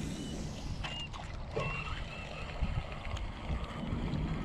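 Steady low noise of wind and water around a small wooden boat, with several short, high chirps in the first couple of seconds.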